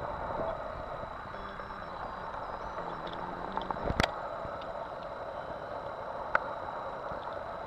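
Steady outdoor background hiss, with a sharp click about four seconds in and a smaller one a couple of seconds later.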